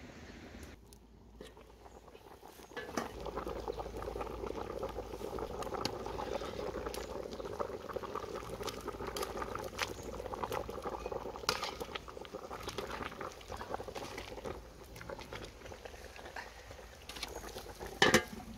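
Braised fish stew bubbling at a boil in a large aluminium pot, with a ladle scraping and clicking against the pot as it is stirred. Near the end the metal lid goes onto the pot with a single loud clank.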